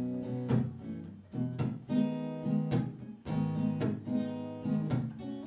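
Acoustic guitar strumming chords in a steady rhythm, an instrumental break in a song.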